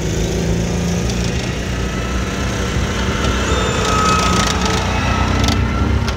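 Light tracked armoured vehicle driving past close by on grass: the engine runs under a continuous clatter of its steel tracks and running gear. A thin high whine rises to its loudest about four seconds in as it passes.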